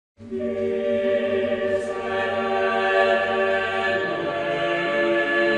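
Music intro of a sustained, choir-like chant, held chords entering just after the start and shifting to a new chord about four seconds in.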